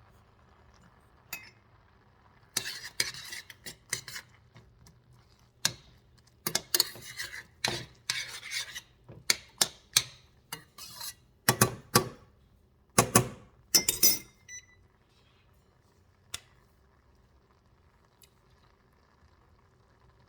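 Utensils and dishes clinking and clattering in a kitchen, a run of sharp strikes that stops about three-quarters of the way through, with one last click a couple of seconds later.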